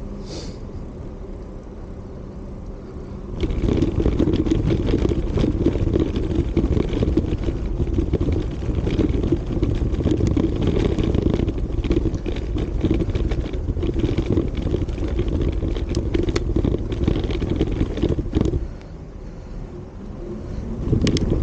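Wind buffeting and road rumble on the microphone of an action camera riding along on a moving bicycle, a loud low rumble that jumps up sharply a few seconds in and drops back down near the end.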